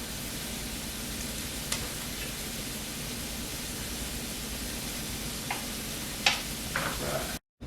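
Chicken and bacon frying in a pan, with a steady sizzle and a few faint clicks.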